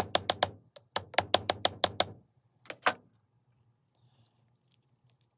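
Hammer tapping a dapping punch into a steel dapping block to dome a copper disc: quick, light, evenly spaced taps, several a second, in two runs with a short break, then two last taps about three seconds in.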